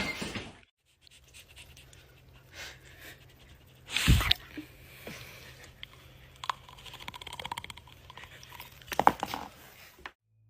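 A dog chewing and crunching on something, with scattered crackly clicks that grow denser in the second half. There is one loud sudden sound about four seconds in.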